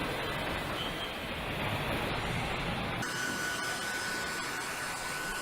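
Steady assembly-line factory noise, a hissing machinery din. About three seconds in it changes abruptly to a brighter noise with a thin steady high tone.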